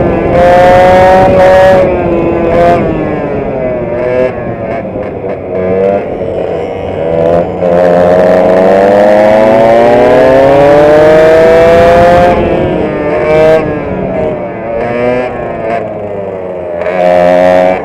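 Vintage racing kart's two-stroke engine, heard from the driver's seat, revving up and down with the track: the pitch falls a few seconds in, climbs in one long rise through the middle, drops sharply, then rises again near the end.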